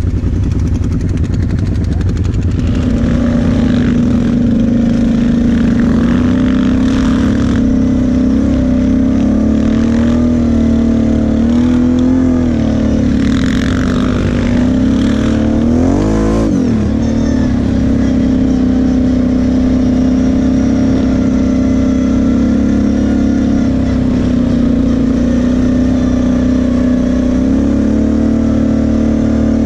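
Quad (ATV) engine running under way at a steady pitch, the revs dipping and climbing back twice around the middle.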